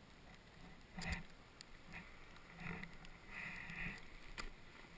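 Snowboard scraping and sliding over snow in a few short strokes, with a sharp knock about a second in and a click near the end.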